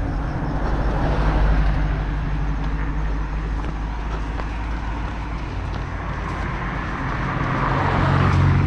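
Road traffic: a steady low engine and tyre noise that grows louder near the end as a car passes close by.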